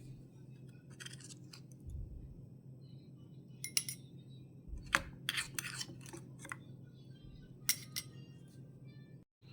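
Light clinks and scrapes of small kitchen utensils being handled, with a few sharp ones about four, five and nearly eight seconds in, over a steady low hum.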